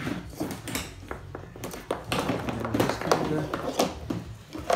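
Irregular light clicks and knocks of hands working a snowmobile's plastic cowl panels and wiring connectors close to the microphone.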